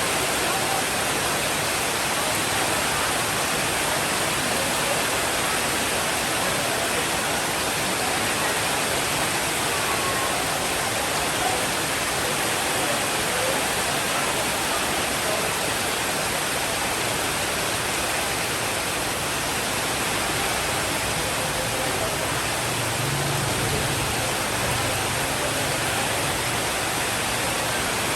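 Steady, dense rain: an even, unbroken hiss. A faint low rumble comes in briefly about two-thirds of the way through.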